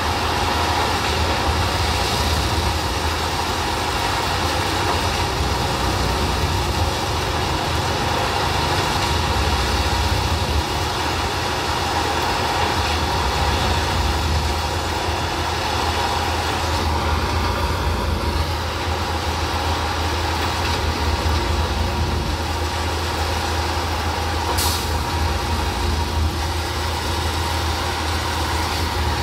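Plasser & Theurer 08-32 U ballast tamping machine at work: its diesel engine runs steadily with the vibrating tamping units as the machine creeps along the track, and a short high hiss sounds near the end.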